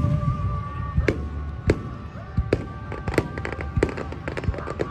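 Fireworks going off with sharp bangs every half second to a second, over music playing.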